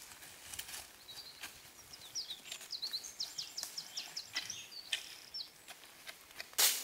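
Footsteps on leaf litter and twigs, with a songbird singing a fast series of high notes from about a second in until about five seconds in. A short, loud rustle comes near the end.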